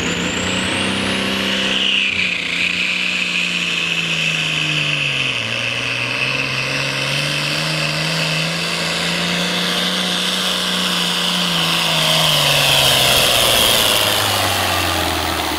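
Hot farm class pulling tractor's turbocharged diesel engine running hard under load as it drags the weight-transfer sled. A high whine sits over the engine note. The engine pitch sags about five seconds in as the load builds, climbs back, then drops away near the end as the run winds down.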